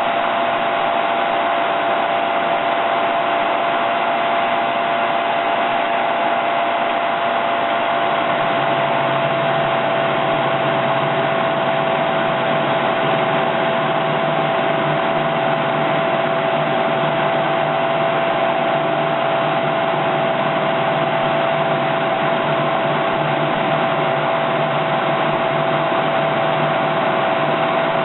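Mini mill running steadily with a large shaper cutter on the spindle, taking the last facing pass across a small cast vise body; a steady motor whine, with a lower hum joining about eight seconds in.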